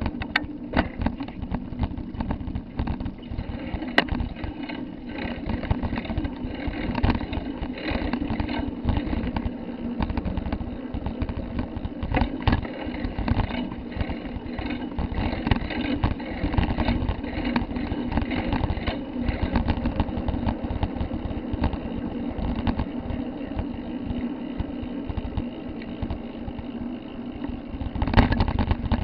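Riding noise on a handlebar-carried action camera moving along a street: irregular wind buffeting and rattling over a steady low hum, getting louder near the end.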